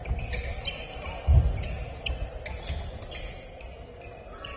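Badminton doubles rally: quick racket hits on the shuttlecock and shoe squeaks on the court floor, with one heavy thud about a second and a half in.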